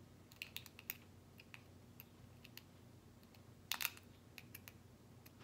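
Faint, scattered small clicks of fingers working the tiny screw and truck hardware of a fingerboard, tightening a truck onto the deck; the sharpest click comes a little before four seconds in.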